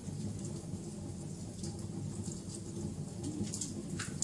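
Wood fire burning with a steady low roar of flames and scattered crackles and pops, one sharper pop near the end.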